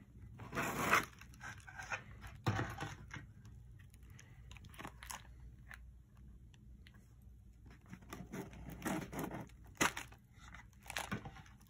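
Cardboard gift box and candy-bar wrappers being handled: soft, scattered rustles, crinkles and light taps as the box layers are lifted, loudest about a second in and again near the end.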